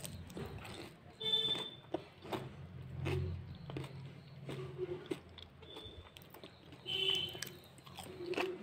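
Someone biting into and chewing crispy baked potato wedges: irregular crisp crunches with chewing sounds between them.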